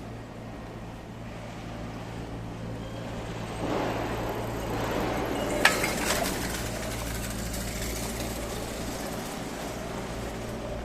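Street traffic: a road vehicle passes, swelling about three and a half seconds in, over a steady low hum. A single sharp click comes near the middle.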